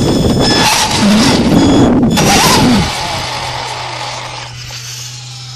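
Brushless electric 4x4 RC truck driving with the microphone riding on it: the motor's whine rises and falls over loud tyre and road noise on wet concrete. About three seconds in the truck eases off and the sound drops to a steady low hum.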